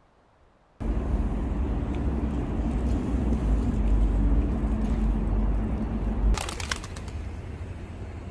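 Outdoor city ambience: a steady low rumble of traffic that starts abruptly about a second in. About six seconds in there is a brief rattle of sharp clicks, and after that the rumble goes on more quietly.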